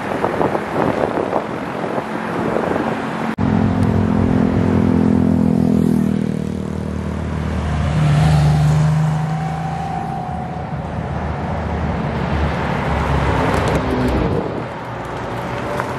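Cars driving past one after another with their engines running steadily rather than revving hard. The loudest pass comes about halfway, from a classic air-cooled Porsche 911 and its flat-six. A Toyota GR Supra goes by near the end. Wind noise on the microphone in the first few seconds.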